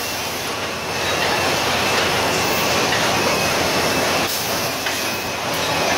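Bottle packaging line running: conveyor and enclosed packing machines giving a loud, steady mechanical clatter with a faint steady whine.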